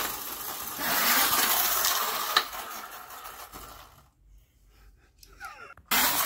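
Toy auto-rickshaw's plastic wheels rolling across a rough concrete floor: a steady rushing noise that fades and stops about four seconds in, then starts again suddenly near the end.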